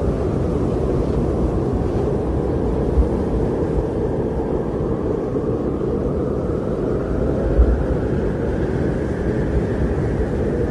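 Strong blizzard wind blowing in a steady low rush, with a faint howl that slowly sinks and rises again. Two brief low thumps of gusts buffeting, about three seconds in and again near eight seconds.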